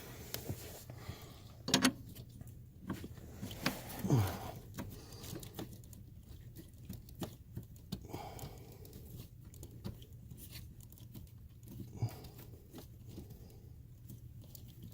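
Light clicks, taps and scrapes of hands fitting a brake light switch into its threaded bracket under a car's dashboard, with two louder short noises about two and four seconds in.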